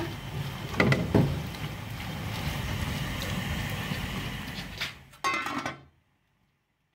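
A spoon stirring grated carrots and soaked rice in a steel pot over a steady hiss, with a couple of knocks about a second in, then the steel lid set on the pot with a short ringing clank a little after five seconds.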